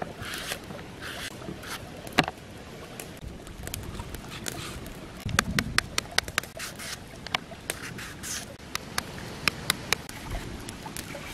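Knife shaving strips off a crisp green mango: irregular short scraping strokes with sharp clicks, and one duller knock a little over five seconds in.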